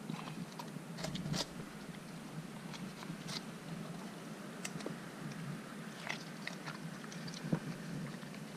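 Siberian husky puppy biting and chewing watermelon down to the white rind, with irregular crunches and snaps of the rind.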